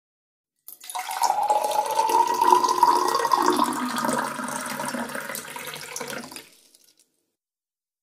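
Water poured into a glass, with a ringing tone in the pour that rises slightly as the glass fills. It starts suddenly about a second in and fades out near the end.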